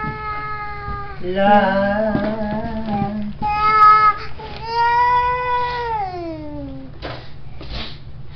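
A toddler singing long, held wordless 'aah' notes at a high child's pitch, several in a row, the last one sliding downward before it ends.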